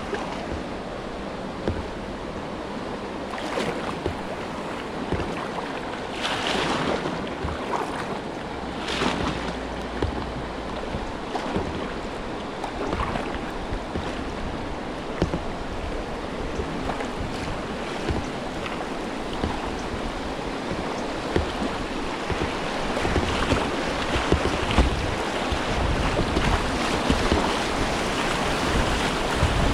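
Whitewater rapids rushing around a kayak, with splashes now and then and wind buffeting the microphone, growing louder in the last third.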